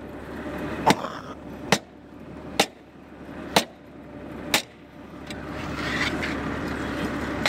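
Five sharp knocks about a second apart as caked soil is struck off a tractor plough's steel mouldboard with a hand tool, over the steady running of the idling tractor engine. The knocking stops about halfway through, leaving the engine running alone.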